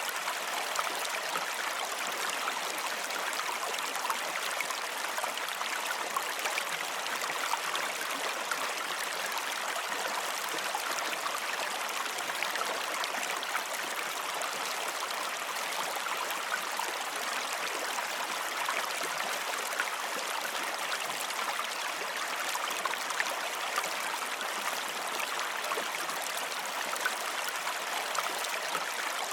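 Running water flowing steadily, an even rush with fine splashing ticks and no change throughout.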